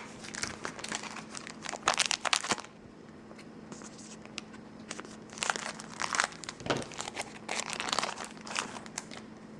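Foil wrapper of a Yu-Gi-Oh! booster pack crinkling and being torn open, in two spells of irregular crackling with a quieter pause between.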